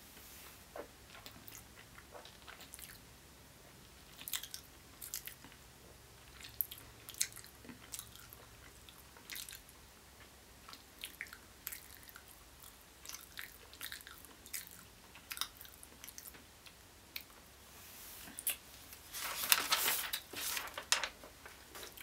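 A person chewing a mouthful of jumbo hard-boiled egg: scattered wet mouth clicks and smacks, busier and louder near the end.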